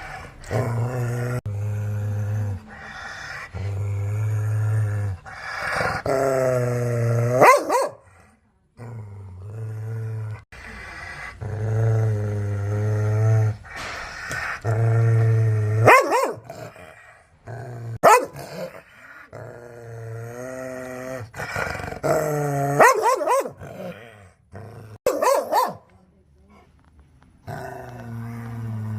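Angry dogs growling in long, low, drawn-out growls, broken by several sharp barks: aggressive, threatening dog vocalisations.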